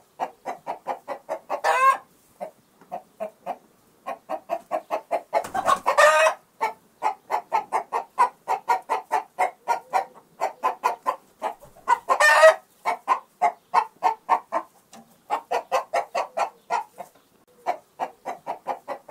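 Hen-like clucking in the pattern of a hen's cackle: fast runs of short clucks, broken three times by a longer, louder squawk.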